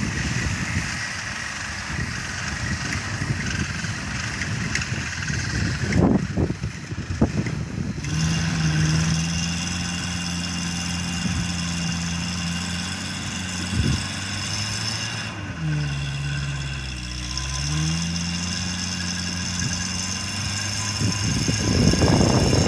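SuperWinch LP8500 electric winch running with a steady whine from about eight seconds in, its pitch dipping and then recovering partway through as it takes up load. Before that, and underneath it, there is the steady sound of the Suzuki Samurai's engine running.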